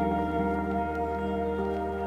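Background music: calm ambient music with long held chords and a few soft note attacks, changing chord about a second in.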